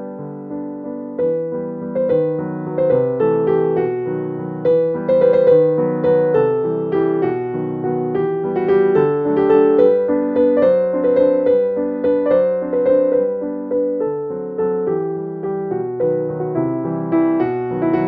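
Background piano music: single notes and chords, each struck and then fading.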